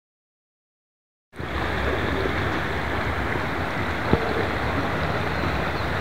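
Silence, then about a second in a steady rush of flowing water begins abruptly, with one sharp click a little past the middle.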